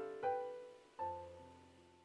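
Soft background piano music: sustained chords with new notes struck about a quarter second in and again about a second in, each dying away until it fades out to silence at the end.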